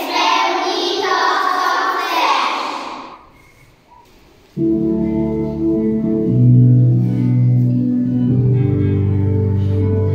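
Children's voices reciting together in chorus, which stop about three seconds in. After a short pause, a recorded music track starts abruptly, with steady sustained notes and a low bass line.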